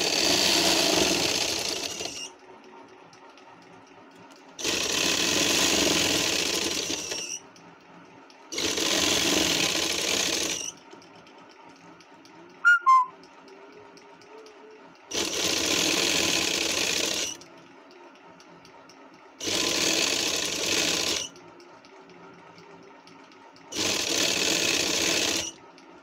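Straight-stitch sewing machine running in six short runs of about two seconds each, stitching a seam along a kurta's button placket, with pauses between runs as the fabric is guided. About halfway through, a sharp double click sounds.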